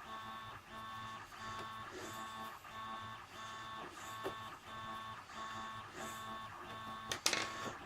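3D printer's stepper motors whining in several pitched tones that repeat in short stretches, about two a second, as the print head moves. A loud sharp clatter comes near the end.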